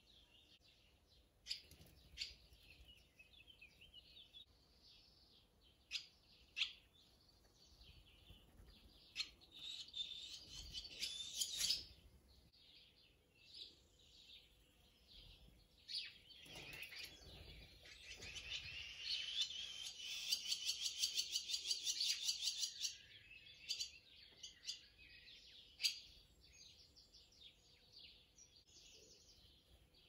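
Barn swallows twittering around their mud nest under the roof beams. Scattered sharp calls build into a short burst of fast chattering song about ten seconds in, then a longer, louder run of rapid twittering and rattling from about sixteen to twenty-three seconds.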